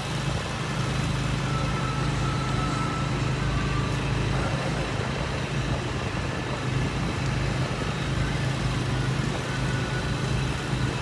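A steady, low motor hum like an idling engine or generator runs under general outdoor background noise.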